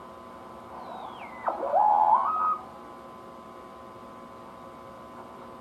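1925 RCA Radiola IIIa regenerative receiver whistling through its speaker as the tuning knob is turned: about a second in, a squeal glides down, drops sharply, then climbs back up in steps and cuts off before the middle, over a faint steady hiss. This is the heterodyne squeal of a regenerative set whose tightly interacting regeneration and tuning controls are set near oscillation, beating against a station's carrier.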